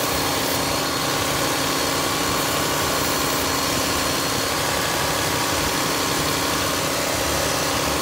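Car engine idling steadily, its old drive belt running without squealing after being sprayed with belt conditioner.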